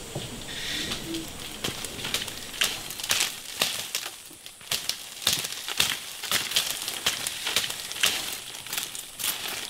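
Chambira palm fronds rustling and crackling as they are pulled and handled by hand, a run of irregular short crackles and swishes.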